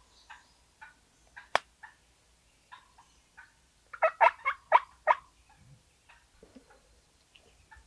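Wild turkey tom gobbling: one rapid, rattling burst about four seconds in. A single sharp click comes about a second and a half in.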